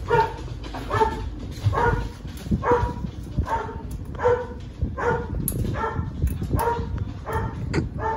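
A dog barking steadily, about once a second, around ten barks in a row.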